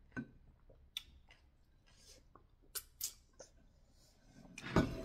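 Small clicks and taps of eating at a table: fingers and tableware against ceramic plates and a plastic sippy cup, a few sharp ticks spread through, with one louder knock near the end.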